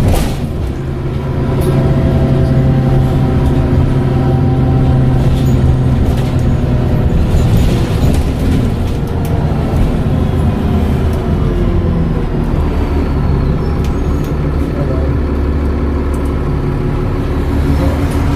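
Dennis Trident double-decker bus's diesel engine running steadily, with a faint high turbo whistle that slides down in pitch partway through.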